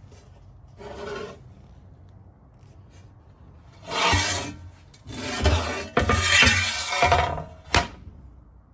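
A hand scraping and rubbing at the rusty, crusted old seasoning on a Griswold No. 9 cast iron griddle. There is a short scrape about a second in, then a longer run of louder scraping through the second half, ending with a sharp tick.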